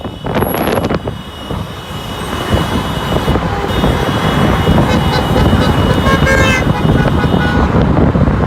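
Car horns honking in celebration over steady street traffic noise, with several horn blasts overlapping in the second half.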